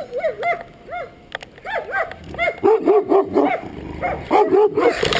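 Guard dog barking at an approaching stranger during a protection test: a few separate barks at first, then from about halfway through rapid, nearly continuous barking.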